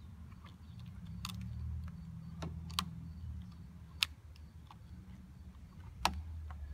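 Sharp plastic clicks and taps, about five spread out, as the printed circuit board of a Ford F350 instrument cluster is pressed and fitted onto its plastic housing by hand, over a low steady rumble.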